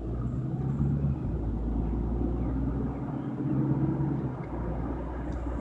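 Car engine hum and road noise heard from inside the cabin as the car pulls away from a junction and gathers speed. The engine note changes in steps, about a second in and again a few seconds later.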